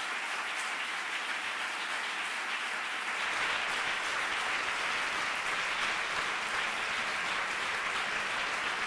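Many people applauding together, a dense steady clapping that grows a little louder about three seconds in.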